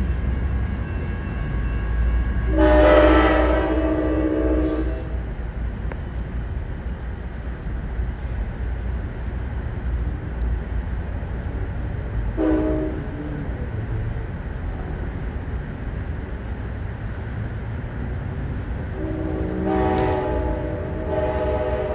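Sounder commuter train's horn sounding: a long blast a few seconds in, a short blast about ten seconds later, and another long blast beginning near the end, over the steady low rumble of the moving train.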